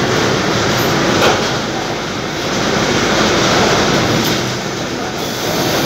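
Steady loud factory machinery noise, a dense unbroken rumble and hiss, with a brief knock about a second in.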